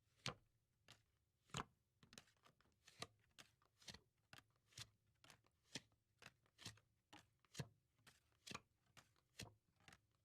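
Playing cards being dealt one at a time, each card landing with a light snap, about two a second in an even rhythm.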